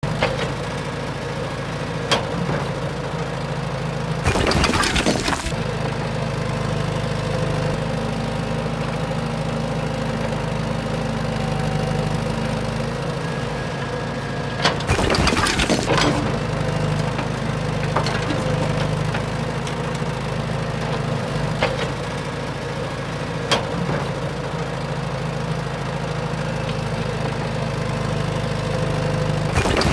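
A battery-powered toy remote-control excavator's small motors and gears run with a steady hum. Twice, once about four seconds in and again near the middle, there is a gritty crunching scrape of about a second and a half as the bucket works stony soil. A few sharp clicks are scattered between.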